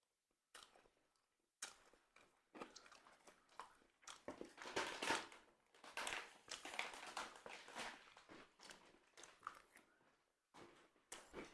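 Close-up chewing of crispy grilled bánh mì: an uneven run of crunching bites and chews, busiest in the middle.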